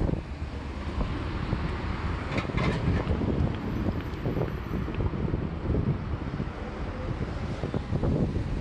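Wind buffeting the microphone, a steady low rumble over city street traffic noise.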